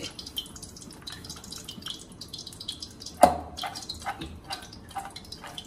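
Hands mixing damp boiled corn kernels with cornflour and spices in a steel bowl: a run of soft wet clicks and squelches, with one louder knock a little over three seconds in.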